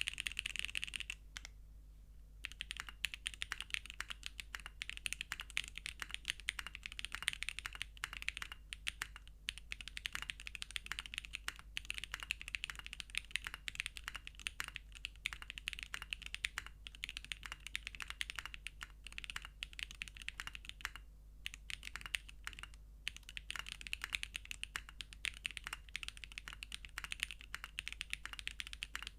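Typing on a Geonworks F1-8X v2 mechanical keyboard with SWK x Kezewa Typewriter switches, a polypropylene plate, O-ring mount and GMK keycaps. It gives rapid, continuous key clacks, with a brief pause about a second in before steady typing resumes.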